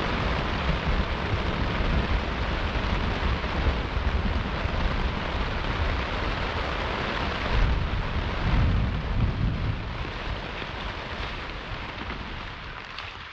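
Heavy rain falling on a tent canopy, heard from inside, with thunder rumbling low underneath. The rumble swells loudest about eight seconds in and then eases off toward the end.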